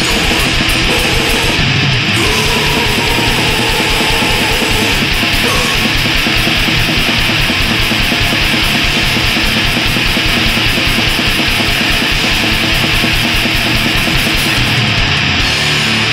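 Black/war metal song: heavily distorted guitars over fast, relentless drumming, with the drumming dropping away near the end.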